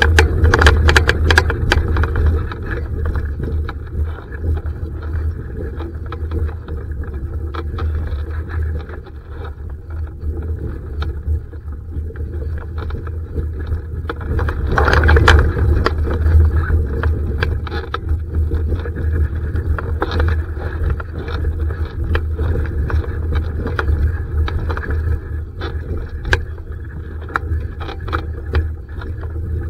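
Wind rumbling on the microphone, with many small knocks and splashes from a Laser sailing dinghy and the water around it; a louder gust about halfway through.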